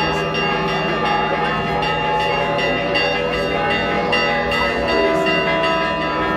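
Church bells ringing continuously, many bells struck in quick succession so their tones overlap, with crowd voices underneath.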